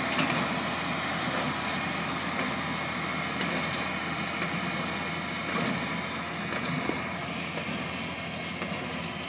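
John Deere 214W square baler working behind a John Deere 4020 tractor: a steady mechanical clatter with a few sharper clanks over the tractor's engine. It grows slightly fainter from about seven seconds in.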